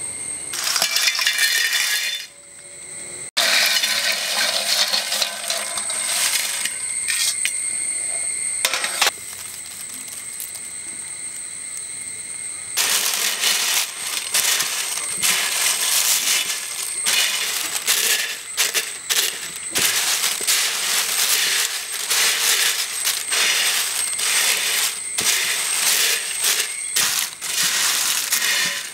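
Crisp, fresh-fried ribbon pakkavada strips being poured onto a steel plate and tossed by hand: a dense dry crackling and rattling of the brittle strips against each other and the metal. There is a short pause about two seconds in, and the sound is quieter for a few seconds in the middle.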